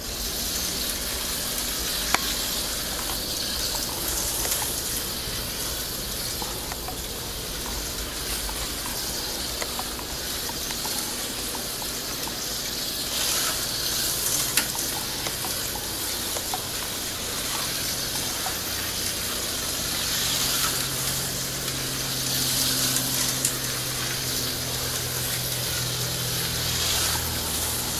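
HO-scale slot cars running laps on a plastic track: a steady high whirring hiss of their small electric motors and pickups on the rails, with a few sharp clicks. A low steady hum comes in about two-thirds of the way through.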